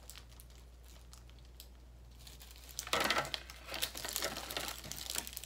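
Clear plastic packaging crinkling as a new motorcycle helmet visor is unwrapped and handled: faint scattered crackles at first, then louder, denser rustling from about three seconds in.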